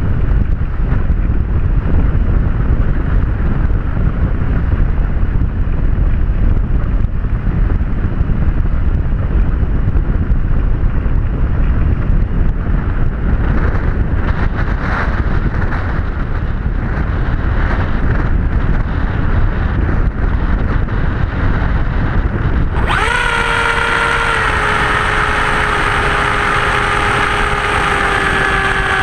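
Wind buffeting the microphone, then about two-thirds of the way through an abrupt change to the steady whine of the Skysurfer model plane's electric motor and propeller, slowly falling in pitch.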